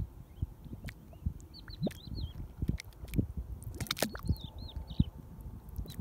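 Mud volcano's crater pool bubbling: gas pushing up through thick mud in a run of low glugs and plops, with a large mud bubble bursting in a wet splat about four seconds in. A small bird chirps twice in short runs of quick rising notes.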